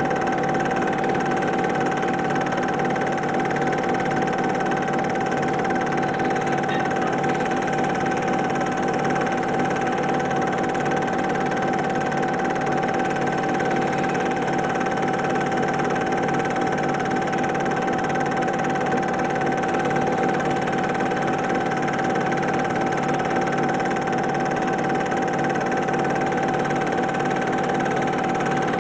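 Super 8 film projector running: a steady mechanical whirr with a constant hum, unchanging throughout.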